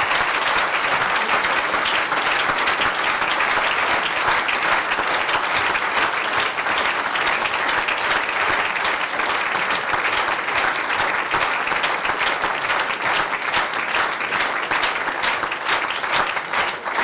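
A large audience applauding steadily, the clapping thinning out near the end.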